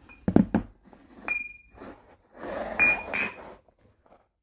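Glass beer bottles knocking down onto a table and clinking against each other as three are set in a row. First a few dull knocks, then a clink that rings on briefly, then two sharp ringing clinks close together about three seconds in.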